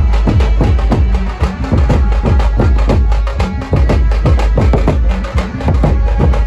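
Street drum band playing: several large drums beaten with sticks in a fast, driving rhythm over heavy bass, with some held pitched notes behind.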